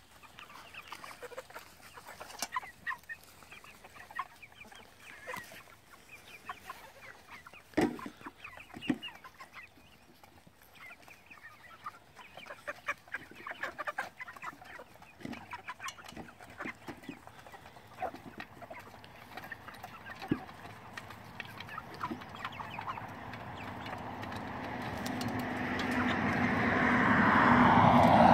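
Flock of Cornish Cross broiler chickens clucking and calling, with a sharp thump about eight seconds in. Over the last few seconds a rushing noise swells up and becomes the loudest sound.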